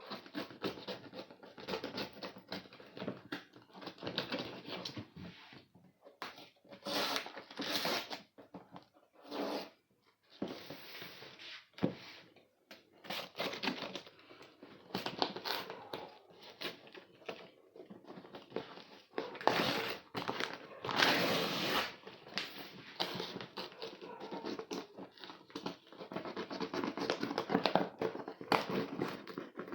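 Cardboard packaging being opened by hand: tape and cardboard tearing and plastic wrap crinkling in irregular bursts.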